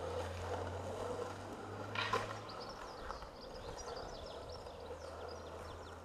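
Outdoor ambience on the camera's own microphone: a steady low hum, a single knock about two seconds in, and small birds chirping rapidly in the second half.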